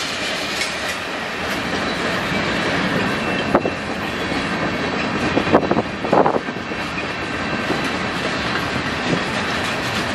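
Freight train cars rolling past on the rails: a steady rumble with sharp clicks from the wheels, the loudest coming about three and a half and six seconds in.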